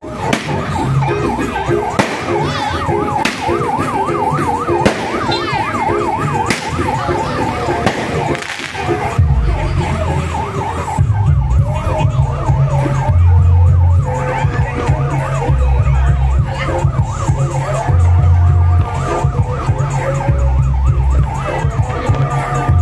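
Ambulance siren warbling fast, with sharp bangs every second or two. About nine seconds in, heavy bass beats from a loud sound system take over.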